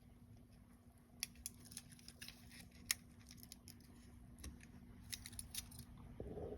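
Faint, scattered light metallic clicks and ticks of small tools and parts being handled while a piston ring's end gap is checked, over a steady low hum.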